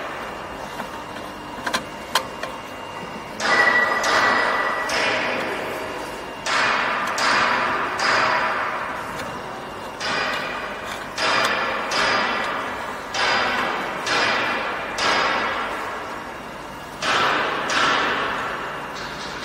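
Stainless steel pipe fittings being knocked, pushed and twisted together: a series of sharp metal clanks and scrapes, each fading out quickly, about a dozen in all.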